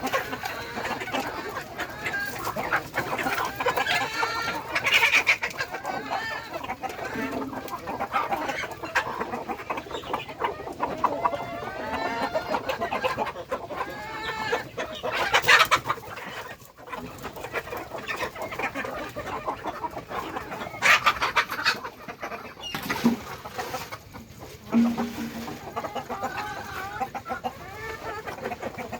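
A flock of domestic chickens clucking and calling continuously, many short calls overlapping, with a few louder, sharper calls about halfway through.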